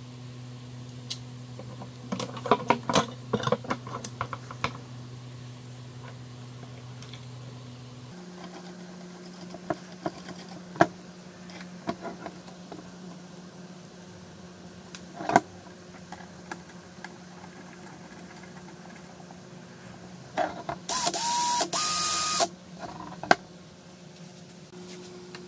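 Metal parts clinking and being handled as an angle grinder's gear head is fitted to a cordless drill. Near the end the drill runs for about a second and a half: its motor whines up in pitch, holds, steps up once, then stops, spinning the grinder gear head through the chuck.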